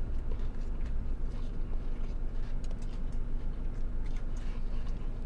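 Close chewing of a crisp taco shell: faint crunches pulsing about three times a second, over a steady low hum in the car cabin.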